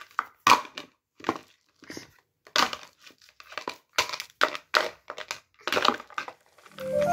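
Light plastic bowls knocked and clapped together in a toddler's hands: an irregular string of hollow clacks, about two to three a second. Music comes in at the very end.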